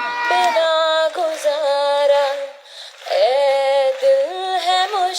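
A high female voice singing a Hindi song with long held notes and pitch glides. It breaks off briefly about halfway through, then comes back with a rising glide.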